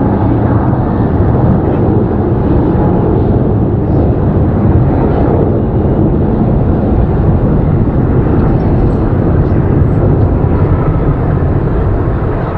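Airbus A321 jet climbing out after takeoff, its twin engines at takeoff power: a loud, steady, deep rumbling noise.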